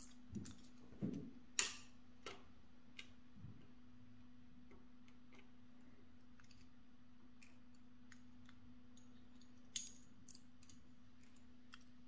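Small sharp metal clicks of steel tweezers working in a dimple lock cylinder, picking out its driver pins, heard partly through a contact mic on the lock. The clicks come in two scattered clusters, one in the first few seconds and another near the end, with a quiet stretch between them. A faint steady low hum runs underneath.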